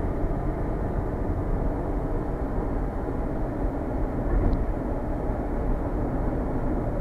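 Steady road and engine noise inside a car's cabin while it drives at highway speed.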